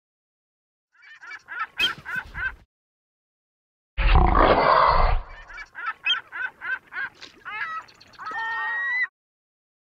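Animation sound effects of a monster eating birds: quick runs of short squawking bird calls, then about four seconds in a loud, rough noise from the monster lasting over a second. More squawks follow, and a few sliding, wavering calls near the end.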